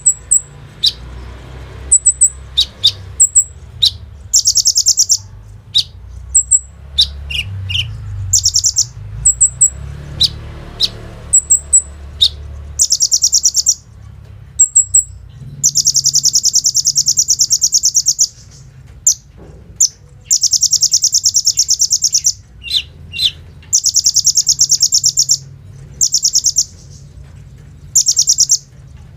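A sunbird of the kind called kolibri ninja, singing. It starts with quick sharp high chips and then gives long, very fast buzzing trills, each lasting a second or two, repeated with short gaps. The title says the bird is full of imitations, including bren and AK-47 type rapid rattles.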